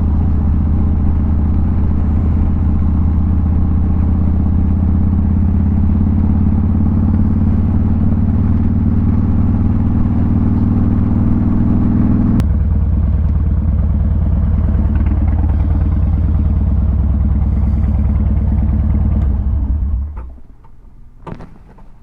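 Motorcycle engine running steadily, its note changing abruptly about twelve seconds in, then switched off about twenty seconds in, followed by a few light clicks.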